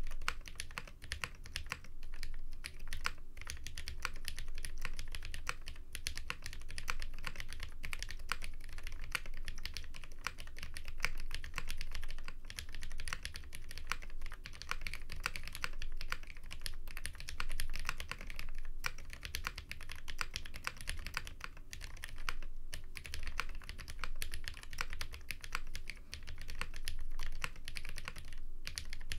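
Steady typing on a KBD8x MKII mechanical keyboard with Cherry Hyperglide switches: a fast, continuous stream of keystroke clacks, broken by a few brief pauses.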